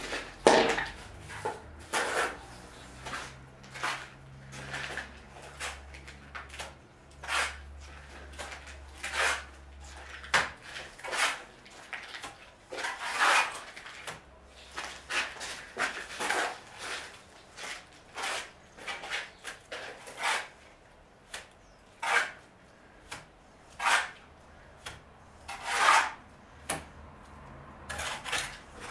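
Irregular scraping and knocking of hand work on brick and mortar, in short strokes roughly one or two a second, loudest near the start and again near the end.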